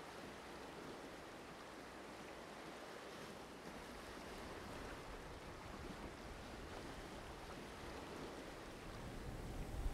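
Faint, steady wash of small lake waves against a rocky shore.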